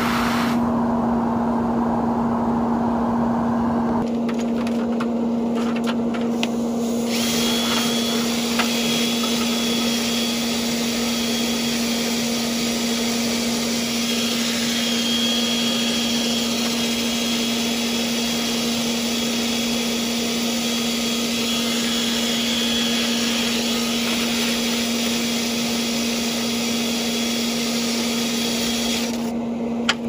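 Cordless drill spinning a flexible rotary brush rod through a dryer vent duct to clear a lint clog, with a vent-cleaning blower's steady drone underneath.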